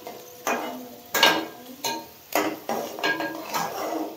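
Metal spatula stirring chopped vegetables in an aluminium pot, scraping and knocking against the pot wall in about six strokes, each leaving a short metallic ring.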